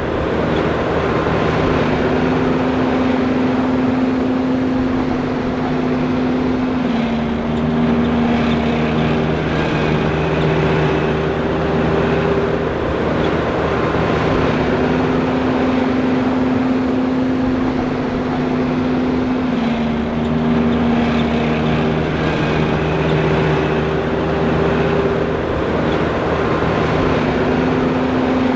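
John Deere 5820 forage harvester running, a loud, steady machine drone. Its tones step up and down in pitch every few seconds.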